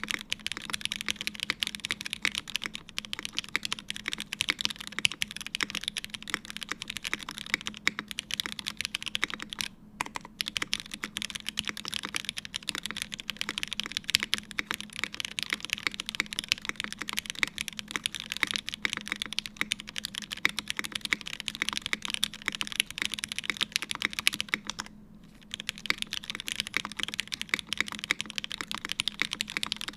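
Continuous typing on a top-mount Haus mechanical keyboard with an aluminium plate, lubed and filmed Cherry MX Hyperglide Black linear switches and GMK keycaps: a dense run of keystroke clacks. It stops briefly about ten seconds in and again around twenty-five seconds in.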